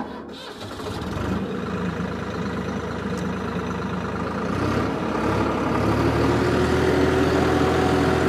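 Swaraj 969 FE tractor's three-cylinder diesel engine catching right at the start as the key is turned, then running steadily. It grows louder over the second half as the tractor gets under way with the plough.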